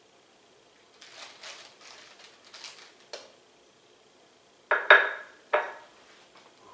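Kitchen tongs scraping in the air fryer basket while picking up jalapeno poppers, then clacking against the basket and a serving dish: a soft scrape for a couple of seconds, a sharp click, then three loud knocks about five seconds in, the middle one the loudest.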